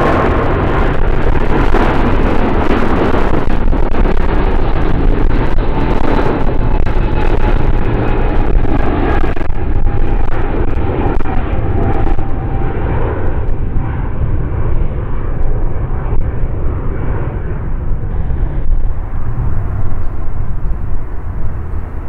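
Loud jet engine noise from a heavy airliner close by. It is a steady, dense roar with a few faint whining tones. Its sharper hiss fades about halfway through, leaving a duller rumble.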